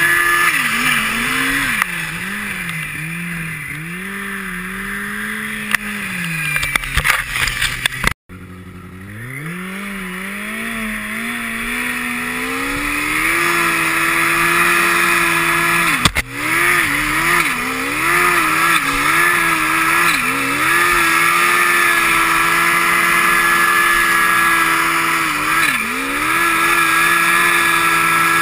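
Turbocharged snowmobile engine riding under throttle in deep powder, its pitch rising and falling as the throttle is worked. About eight seconds in the sound briefly drops out; the engine then winds up over a few seconds and holds high revs, with short lifts off the throttle.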